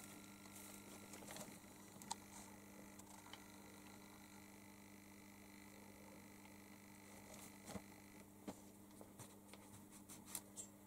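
Near silence: room tone with a faint steady electrical hum and a few soft scattered ticks and taps, more of them near the end.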